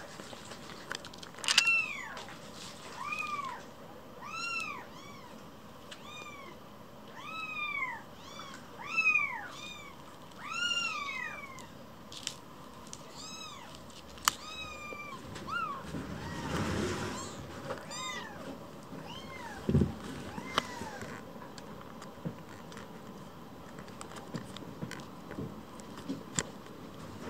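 Very young kittens mewing: high, thin mews that rise and fall in pitch, about one a second for the first fifteen seconds, then fewer and fainter. Brief rustling and a soft knock come in the quieter second half.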